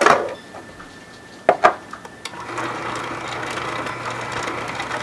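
Two sharp knocks in the first two seconds, then about halfway through a vertical Omega masticating juicer's motor starts and runs steadily with a low hum as its auger grinds leftover juicer pulp.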